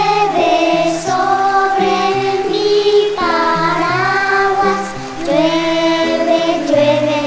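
Children's choir singing a melody over an instrumental accompaniment, the low backing notes changing every half second or so.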